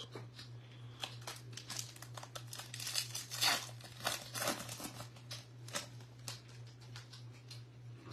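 A 2024 Bowman Baseball hobby pack's wrapper being torn open and crinkled by hand: a run of crackles that is thickest around the middle and thins out toward the end, over a steady low hum.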